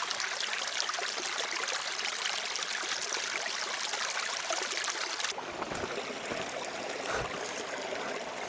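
A small brook running, a steady rushing babble of water that turns softer and duller about five seconds in.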